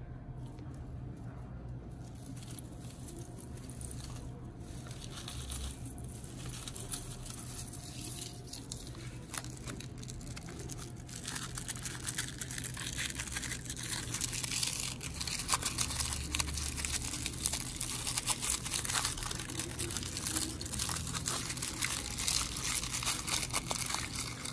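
Aluminium foil crinkling and crackling as it is peeled away by hand from a small plastic toy car. It gets louder and busier about halfway through.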